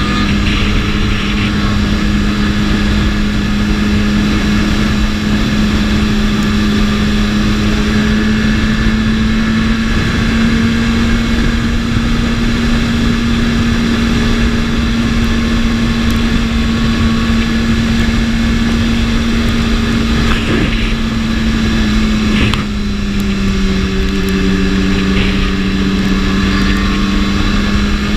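BMW S1000RR inline-four engine running at a steady cruise, holding one even note over constant noise. About three-quarters of the way through the note dips briefly, then holds at a slightly lower pitch.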